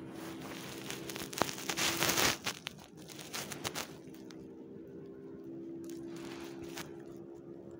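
Rustling and crinkling of a fleece blanket as a hand strokes a cat and handles its paw, loudest in a burst with a few sharp clicks early on, then in softer bouts, over a faint steady hum.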